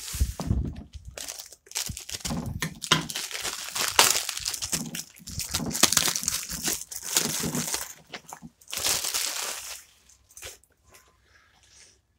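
Plastic MRE ration bag and its packets being opened and handled: crinkling and rustling with sharp crackles, dying down about ten seconds in.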